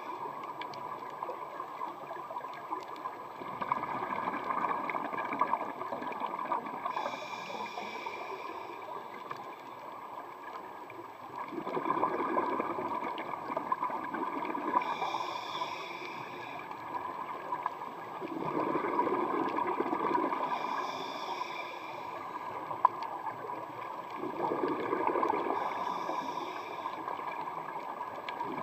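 Scuba diver's regulator breathing underwater: slow breaths, each exhalation a gush of bubbles about every six seconds, four times, with a shorter hiss between them.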